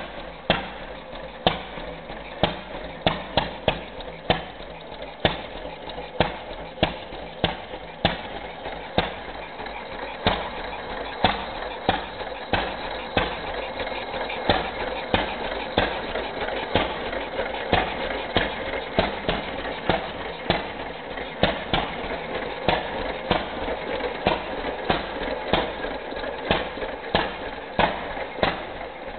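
1916 Fairbanks-Morse 3 hp single-cylinder stationary engine, throttle governed and ignitor fired by a Sumter rotary magneto, running at slow speed: a sharp firing bang roughly once or twice a second over a steady mechanical clatter.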